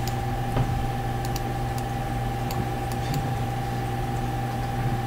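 A steady low hum with a faint constant whine above it, with a few faint clicks of a computer mouse scattered through it.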